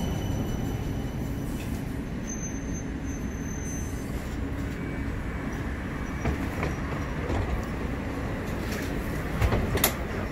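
CAF Urbos 100 tram running on its rails with a steady low rumble. A brief thin high tone sounds about two to four seconds in, and two sharp clicks come near the end.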